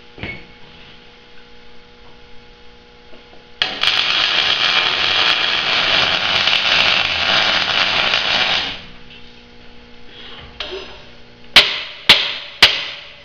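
MIG welder running a weld for about five seconds, a steady crackling hiss that starts about four seconds in and cuts off cleanly. Near the end come three sharp metallic hammer blows on the steel frame, with a low electrical hum under it all.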